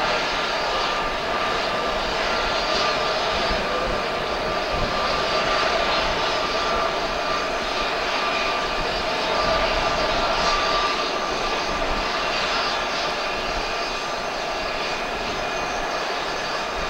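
Airbus A330-223 airliner's Pratt & Whitney PW4000 turbofan engines running steadily, a continuous jet rush with a layered high whine.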